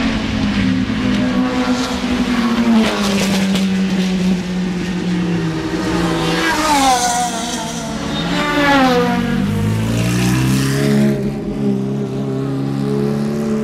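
Ferrari F430 GT3 race car's V8 engine running at low revs as the car rolls slowly past. About halfway in, the engine note falls twice in quick sweeps as it passes close, then settles into a steady, slightly rising note as the car pulls away.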